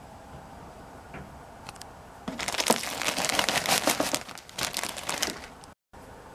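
Plastic bag of potting soil crinkling and rustling as it is tipped and soil is poured out into a plastic seed tray, starting about two seconds in, lasting about three seconds and cutting off abruptly near the end.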